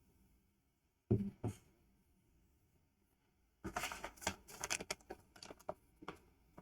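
Small plastic LEGO pieces being handled: two knocks a second or so in, as the build is set down on the table, then a quick run of rattling and clicking as pieces are sorted through.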